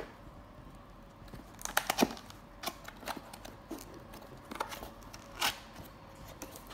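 Cardboard box lid being lifted off by hand: scattered light taps, scrapes and rustles of cardboard, with a few sharper clicks about two seconds in and again near the end.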